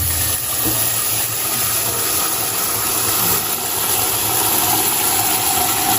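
Tap water running steadily into a cooking pot, a continuous rush that stops suddenly as the tap is shut off.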